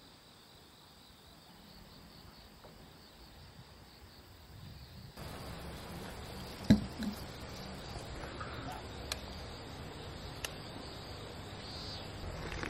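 Outdoor ambience of steady insect chirring, with the background growing louder about five seconds in. A single knock a little before the seventh second, as a glass of iced coffee is set down on a wooden table.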